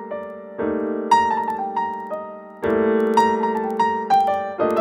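Background music: a keyboard playing held chords with a light melody of single notes over them, new chords striking about half a second in and again a little past halfway.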